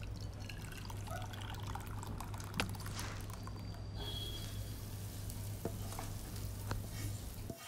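Thick cooked dal being poured into a glass bowl, then the hot garlic, onion and dried red chilli tempering added on top with a faint sizzle from about four seconds in. A few light knocks from the utensil.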